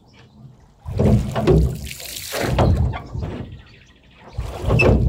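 Water sloshing and splashing around a small rowboat on a river, coming in three separate swells with quieter gaps between.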